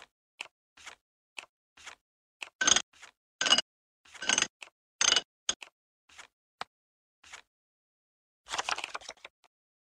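Cartoon sound effects of small handling noises: irregular short clicks and scratchy rustles with silence between, a few louder scrapes in the middle, and a brief cluster of rustling near the end.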